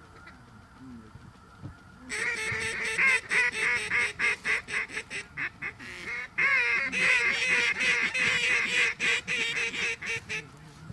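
Rapid, loud honking and clucking waterfowl calls in two long runs, the first beginning about two seconds in and the second after a brief break about six seconds in.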